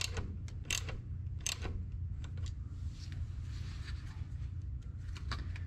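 Hands connecting wiring leads at a tractor battery: scattered small clicks and rattles of wires and terminals being handled and tightened, over a steady low hum.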